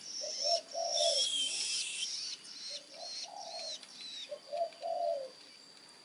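Long-tailed shrike nestlings begging with high, thin chirps and short falling calls, repeated many times. Lower short notes from another bird come in and out underneath.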